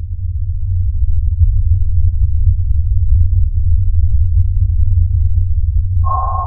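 A loud, deep synthesized drone, a low hum that swells in and holds steady as an outro sound effect. About six seconds in, a higher steady tone joins it suddenly.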